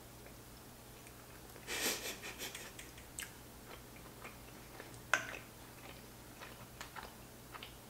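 Mouth sounds of a person eating a big bite of sauced giant fusilli: a short wet burst around two seconds in as the pasta is taken in, then soft chewing with small lip clicks, and one sharper click about five seconds in.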